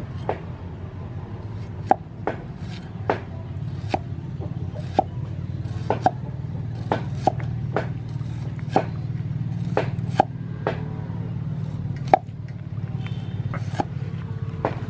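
A cleaver slicing a shallot on a thick round wooden chopping block: sharp knocks of the blade striking the wood, about one a second at an uneven pace, over a steady low hum.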